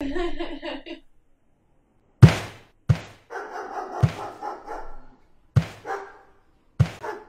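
A brief rapid chattering sound, then a series of sharp knocks and thuds, about six in all, with rustling between them, as of household things being handled and set down.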